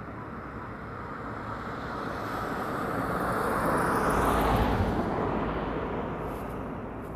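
A passing motor, its noise swelling to a peak about four seconds in and then fading, with its pitch falling as it goes by.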